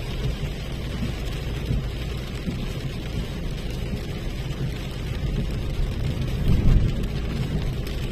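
Rain falling on a moving car, heard from inside the cabin over steady road and engine noise, with a louder low rumble near the end.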